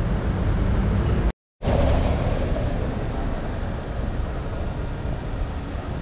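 Steady low noise of a moving vehicle, cut off abruptly just over a second in and resuming a moment later.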